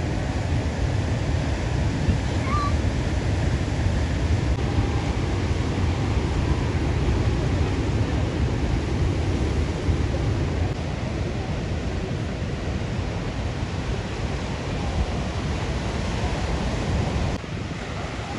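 Sea surf washing onto a beach, with wind rumbling on the microphone; the level drops slightly near the end.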